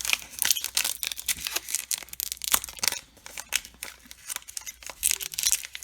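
Baseball card pack wrapper crinkling and tearing as it is pulled open by hand in a run of irregular crackles; the wrapper is hard to tear open.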